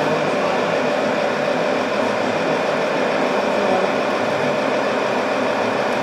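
Radio-controlled 6x6 tipper truck running steadily as it crawls up a sand slope under load: an even mechanical drive noise from its motor and gearbox.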